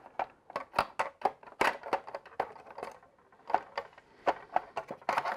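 Hard plastic parts of a Hasbro Endor Bunker playset being handled and fitted together by hand: an irregular run of sharp clicks and light knocks.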